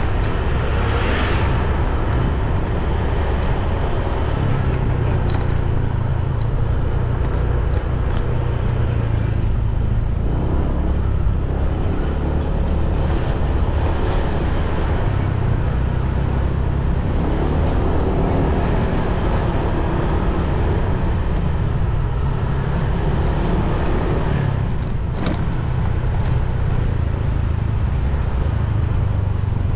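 Motorbike on the move: steady engine and road noise under a heavy low rumble, with one sharp click about 25 seconds in.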